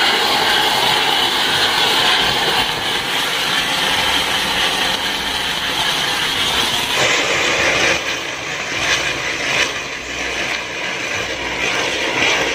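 Flower-pot firework fountains (pookkutti) burning on a homemade firework-driven fan rig: a loud, steady hiss of gushing sparks. About seven seconds in, the hiss turns duller and a few sharp cracks break through.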